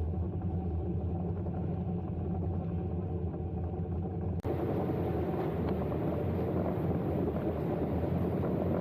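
Steady vehicle engine drone with a low rumble. About halfway through it cuts off abruptly and comes straight back with more wind and road hiss.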